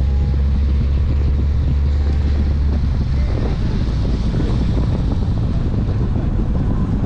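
Wind rushing over a microphone on the outside of a moving car, over a steady low rumble from the car driving on a wet road.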